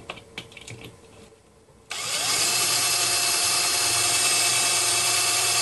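A few light handling clicks, then about two seconds in a cordless drill starts with a short rising whine and runs steadily at full speed, its bit boring into a hollow plastic Christmas ornament.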